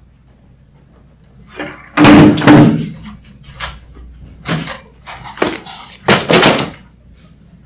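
A door slams shut about two seconds in. Several more shorter knocks and thuds follow over the next few seconds.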